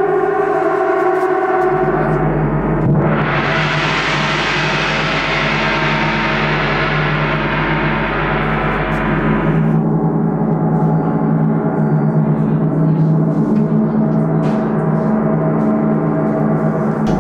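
Large hanging gong played with soft mallets, ringing with many steady overlapping tones. About three seconds in its sound swells into a bright shimmering wash of high tones, which drops away suddenly about ten seconds in, leaving the low tones humming on.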